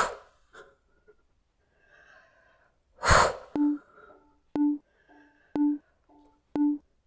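Two short, forceful exhales during crunches, one at the start and a louder one about three seconds in. From about halfway a steady tick, each followed by a short low note, repeats about once a second like a metronome beat.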